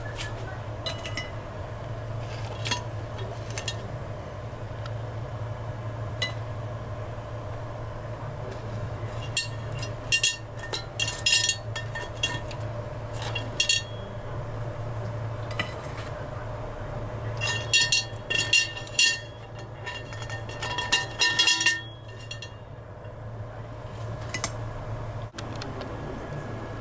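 Light clinks and knocks of a metal wire rack against the glass bowl of a halogen oven as skewered grilled fish are lifted out: scattered single clicks, with two busier clusters in the second half, over a steady low hum.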